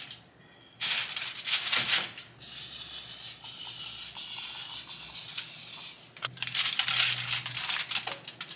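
Aluminium foil crinkling as things are set down on a foil-lined baking tray, then an aerosol cooking spray hissing steadily for about three and a half seconds, then more foil crinkling.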